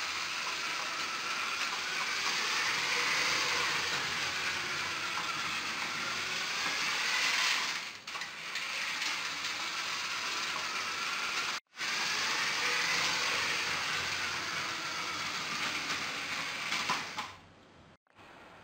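Lego 9V train running on plastic track: a steady mechanical rattle of wheels and gears, with a faint motor whine that slowly rises and falls in pitch. It breaks off briefly twice and fades out near the end.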